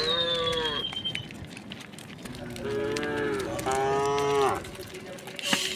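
A herd of cattle mooing: one moo at the start, then two long moos back to back about two and a half seconds in. A thin falling whistle rides over the first moo.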